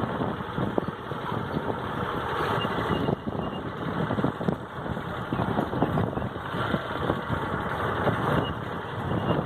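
A motor vehicle running along a bumpy, potholed dirt road: engine noise mixed with wind and frequent small jolts and knocks.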